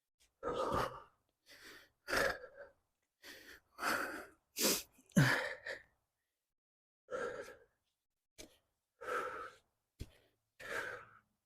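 A man breathing hard, about a dozen heavy breaths with short gaps and a longer pause in the middle: he is out of breath from digging by hand with a pick and shovel.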